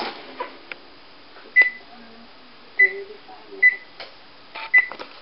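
Electric oven's control panel beeping four times as its keys are pressed, each a short, high beep.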